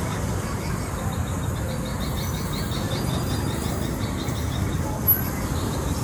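Steady street ambience: the low rumble of passing traffic, with a faint, rapid high chirping over it and a single short knock about five seconds in.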